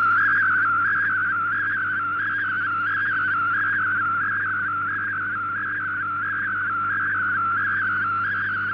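MFSK32 picture transmission from a shortwave broadcast: a single whistling tone that wavers up and down a few times a second as the image's pixels are sent, over a faint steady low hum.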